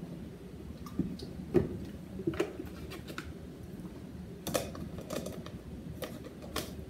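Milk carton and plastic jar lid handled on a kitchen counter, the lid set onto a glass mason jar: a scatter of light knocks and clicks, the loudest about a second and a half in.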